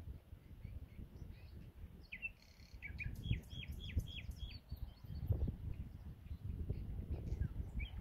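Common nightingale singing: a rising whistled note a couple of seconds in, then a quick run of about five repeated falling notes, about four a second. A steady low rumble runs underneath.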